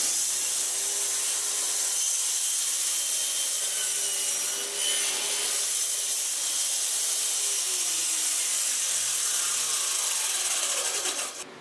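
Circular saw mounted under a homemade table saw, running and cutting through a melamine-faced particleboard strip on a crosscut sled: a steady, loud, hissing saw-cut noise with a faint wavering tone in it. It cuts off suddenly near the end.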